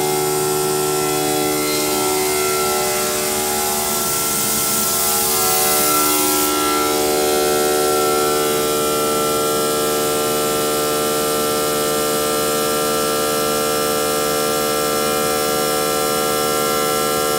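Park Industries Destiny CNC stone router spindle running with a steady, many-toned whine as its water-fed bit cuts the edge of a stone slab. The tones waver and shift for a few seconds early on, with a short burst of hiss about four to six seconds in.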